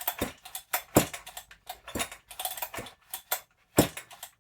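Husqvarna 268XP chainsaw being pulled over on its recoil starter without firing, with irregular sharp metallic clicks and rattles several times a second. The pulls are priming fuel into the engine, which has compression but does not catch.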